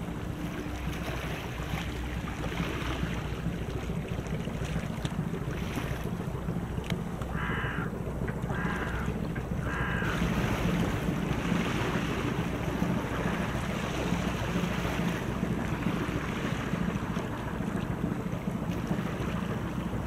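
Steady low drone of a passing general cargo and gravel carrier ship, under wind on the microphone and washing water. A bird calls three times, about a second apart, a third of the way in.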